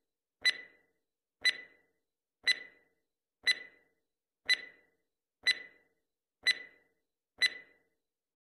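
Countdown timer sound effect: a clock-like tick once a second, eight in all, each a short sharp click with a brief ring.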